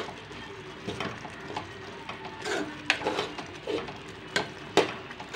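Metal spoon stirring thick cooked red gram dal with ridge gourd in a metal pot, scraping and clinking against the pot's sides several times at irregular moments.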